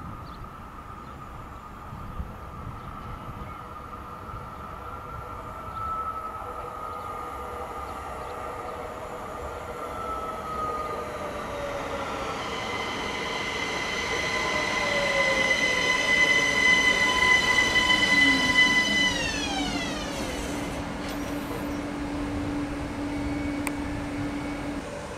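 Electric train passing, getting louder as it approaches. Its traction motors give a high whine of several tones that drops sharply in pitch about three-quarters of the way through as the train goes by.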